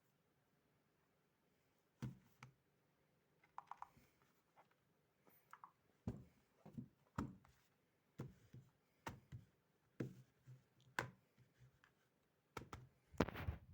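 Handling noise: irregular faint clicks and light knocks, starting about two seconds in, with no ringtone or alarm tone.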